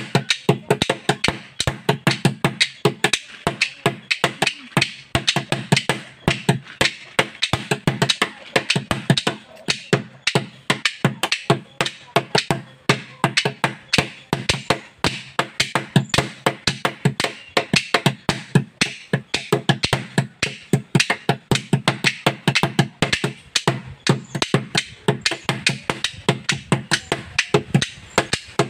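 Children's improvised chenda melam in the Pandi melam style: sticks drumming fast on a hollow plastic jerry can hung as a chenda, with two flat hand-held pieces clapped together in place of ilathalam cymbals. A dense, rapid run of strokes, the can giving a hollow low thud under sharp clacks.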